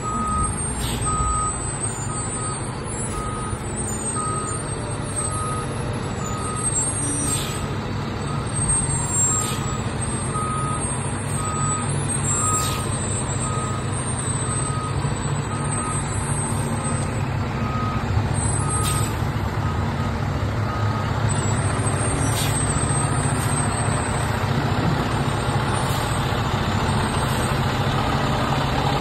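2020 Spartan Gladiator/SVI heavy rescue fire truck backing up: its reverse alarm beeps steadily at about one and a half beeps a second over the running diesel engine, with a few brief sharp sounds along the way. The beeping stops about two thirds of the way through while the engine keeps running.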